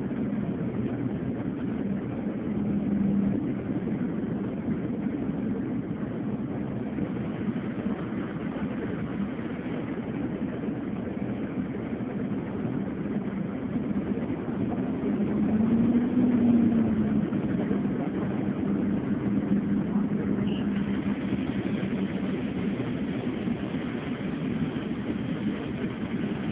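Engine and road noise of a moving road vehicle, heard from inside: a steady low hum whose engine note swells and rises briefly about two-thirds of the way through, then settles.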